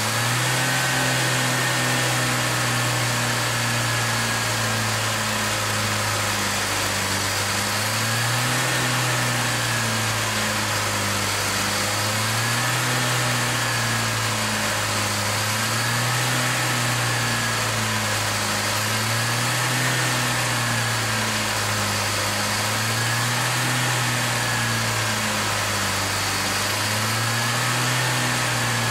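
The engine of a 1971 International Scout 800B running at a fast idle, its speed rising and falling gently every few seconds. Water is being misted into the carburetor throat while it runs, to steam the carbon out of the engine.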